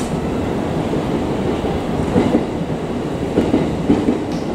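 JR East 209 series 3100 electric commuter train starting away from a station platform: a steady rumble with a few low knocks from the wheels as it gathers way.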